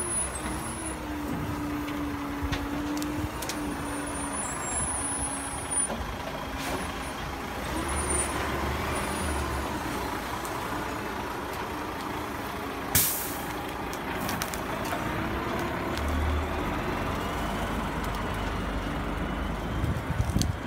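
Diesel engine of a Tatra Phoenix 8x8 dump truck running under load as the truck crawls off-road through brush, its pitch rising and falling. About two-thirds of the way through, a short sharp hiss of air stands out, the loudest moment.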